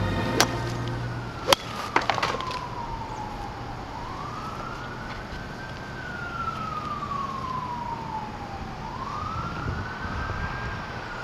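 An emergency vehicle siren wailing, one tone slowly rising and falling over and over, about five seconds to each cycle. A few sharp clicks in the first couple of seconds.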